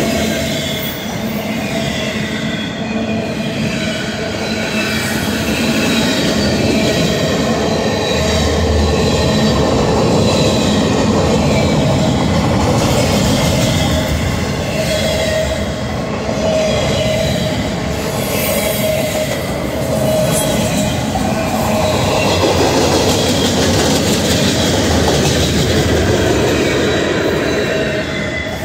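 Autorack freight cars of a Union Pacific manifest train rolling past close by: a steady rumble and clatter of steel wheels on the rails, with steady squealing tones from the wheels.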